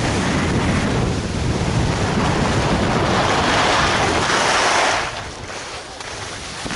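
Wind buffeting a body-worn camera's microphone while skiing downhill, with the hiss and scrape of skis on soft spring snow. It is loudest from about three to five seconds in, then suddenly much quieter as the skier slows.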